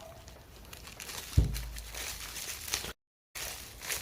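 Plastic packaging crinkling and rustling as a toy capsule is unwrapped and handled, with a sharp low thump against the microphone about a second and a half in. The sound cuts out completely for a moment near three seconds.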